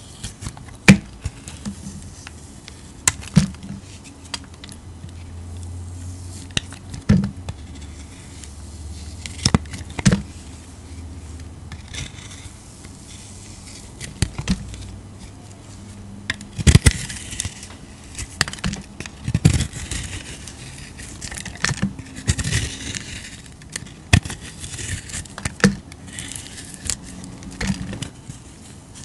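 A snap-off utility knife blade cutting into a bar of soap: irregular crisp cracks and scrapes as the blade pushes through and pieces break away, with denser scraping stretches in the second half.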